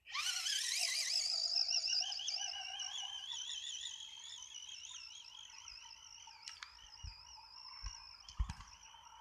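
Electric motor of a remote-control car whining as it speeds off. The high pitch jumps up at the start, wavers up and down, and slowly fades. A few short low thumps and clicks come near the end.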